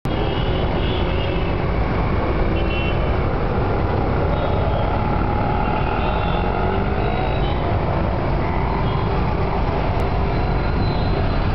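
Steady road traffic at a busy intersection: car, auto-rickshaw and motorbike engines running with a low rumble, with several short horn toots mixed in.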